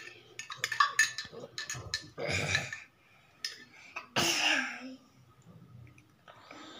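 A toddler's short, breathy vocal bursts, two of them a couple of seconds apart, like coughing or laughing, with a run of sharp little clicks in the first two seconds as he is spoon-fed a drink from a plastic cup.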